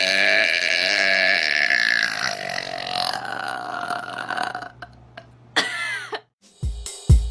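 A woman's long, drawn-out burp that wavers in pitch and trails off over about four seconds, followed by a short sound and low thumps near the end.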